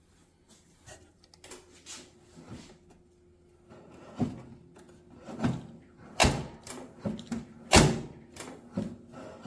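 A run of knocks and thuds from hard objects being handled, sparse and soft at first, then louder, with the two loudest about six and eight seconds in.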